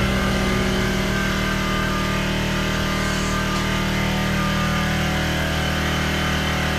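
Car engine running steadily at an even speed.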